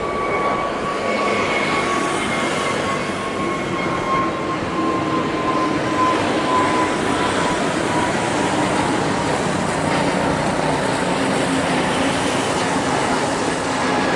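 Airbus A320neo's twin turbofan engines at take-off thrust during the climb-out: a loud, steady rushing with a high engine whine that slowly falls in pitch as the jet passes and draws away.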